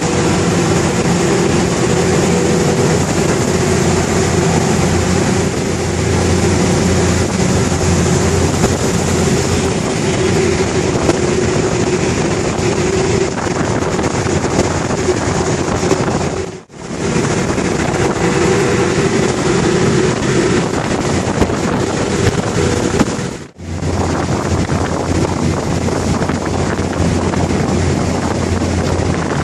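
Passenger ferry under way at sea: a steady engine hum under rushing water and wind buffeting the microphone. The sound drops out briefly twice.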